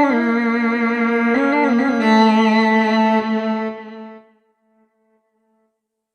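Korg Pa600 arranger keyboard's violin voice playing a melodic phrase with sliding pitch bends, ending on a long held note that cuts off about four seconds in, followed by silence.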